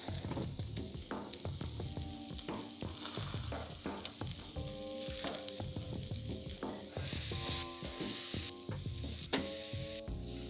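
Meat sizzling on a grid over charcoal, the hiss swelling in louder flare-ups, strongest about seven to eight and a half seconds in, with a sharp click near the end. Background music with held notes plays underneath.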